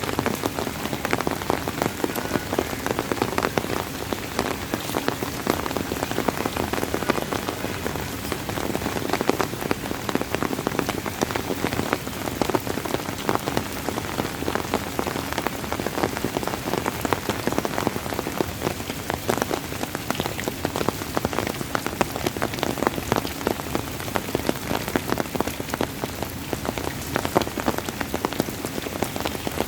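Steady rain falling on a surface, a dense patter of many individual drops ticking without let-up.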